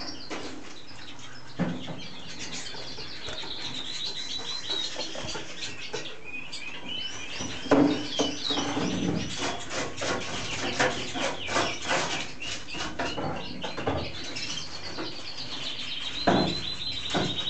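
Male red mosaic canary singing: long runs of rolling trills and chirps. A few sharp knocks sound in between, the loudest about eight seconds in and again near the end.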